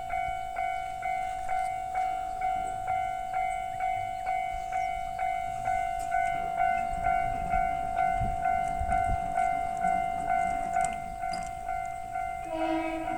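Japanese level-crossing warning bell ringing steadily, its electronic ding repeating in an even rhythm. This is the signal that a train is approaching the crossing. Near the end a short, lower tone sounds over it.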